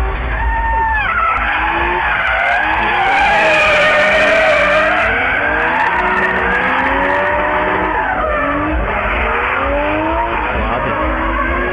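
Drift cars sliding through a corner, their tyres squealing in long wavering screeches that are loudest a few seconds in. Under the squeal, engines rev up and down at high rpm.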